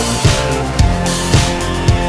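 Background rock music: electric guitar over a steady drum beat, about two beats a second.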